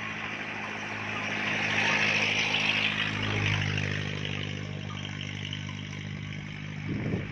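A motor vehicle's engine running steadily, swelling louder about two seconds in and fading again, as of a vehicle passing by.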